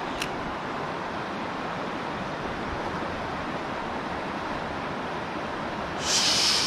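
Steady rushing noise of strong wind buffeting the microphone, mixed with running water from a river weir. Near the end a short, louder hiss rises above it for under a second.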